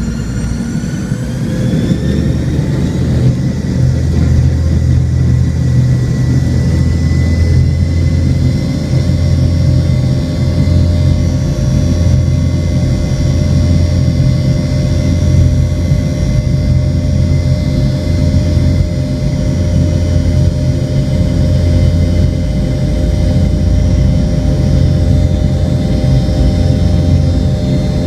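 Boeing 717-200's rear-mounted Rolls-Royce BR715 turbofans spooling up for takeoff: several whining tones rise over the first couple of seconds as the sound grows louder, then settle into a steady loud roar at takeoff thrust. Heard inside the cabin right beside the engines.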